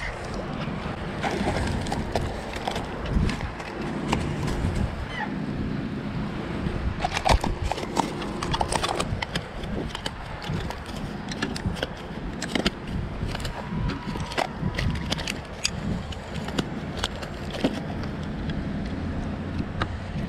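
Goldline bullseye snakehead flopping on grass after being landed: a run of irregular knocks, slaps and rustles, thickest in the middle.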